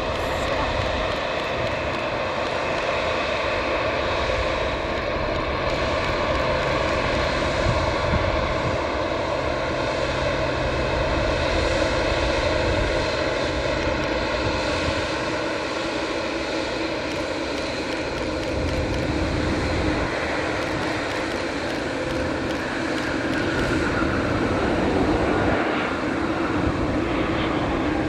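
Twin jet engines of a Boeing 787 Dreamliner running as the airliner taxies, a steady whine over a broad rumble, with tones that slowly fall in pitch.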